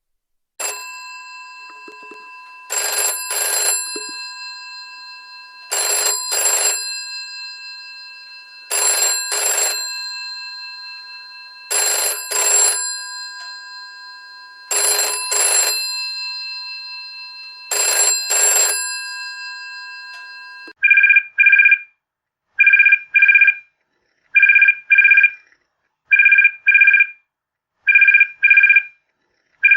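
An old telephone's mechanical bell ringing in double rings about every three seconds, the bell's ring hanging on between them. About two-thirds of the way through it changes to an electronic phone ringer giving pairs of short beeps about every two seconds.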